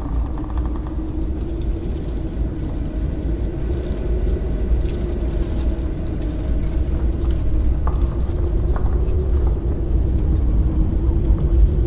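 Haunted-house ambience: a continuous deep rumble with a low, slightly wavering drone tone held over it and faint higher tones drifting in and out.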